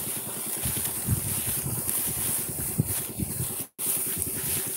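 Wind buffeting the phone's microphone over rustling of dry rice straw, a dense low rumble with a steady hiss above it. The sound cuts out completely for a moment near the end.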